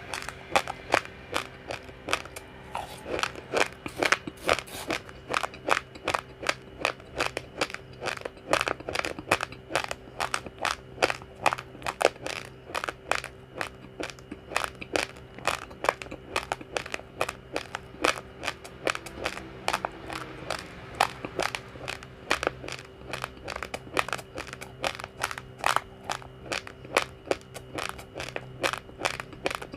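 Uncooked rice grains crunched between the teeth in steady chewing, about three sharp crunches a second, over a faint steady hum.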